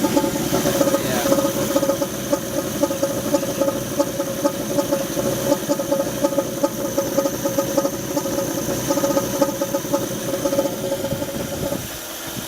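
1983 AMC Eagle engine idling rough with its air filter off, carrying a steady high-pitched tone over the pulsing idle; the owner thinks the strange noise comes from the carburetor. Near the end the tone suddenly cuts out and the idle goes on without it.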